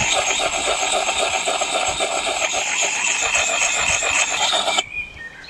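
Coarse side of an olive-oiled axe puck sharpener rubbed in circles over the blade of a Gränsfors Bruk axe: a steady scraping of stone on steel to take out dings in the edge. It cuts off suddenly near the end.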